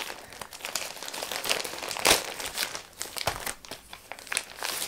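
Plastic postal mailer bag crinkling and rustling as it is handled and reached into, in many short, irregular crackles.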